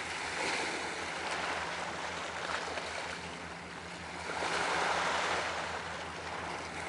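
Sea water washing against breakwater rocks, swelling and easing in waves, the biggest about four and a half seconds in, over a low steady hum.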